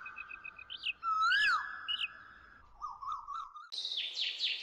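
Cartoon sound effects of whistling bird calls: a held whistle that twice swoops up and back down, with higher chirps over it. About four seconds in, a run of quick downward-sliding bird chirps over a soft hiss.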